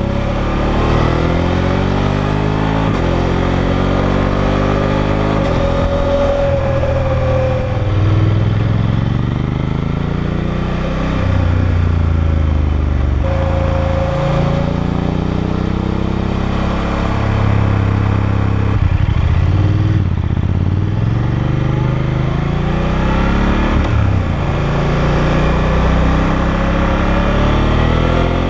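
BMW F850GS's parallel-twin engine through its stock exhaust, accelerating and shifting up through the gears with the quickshifter, then rolling off, again and again. The pitch climbs and drops sharply at each shift, with the engine held below 6500 rpm while it is being run in.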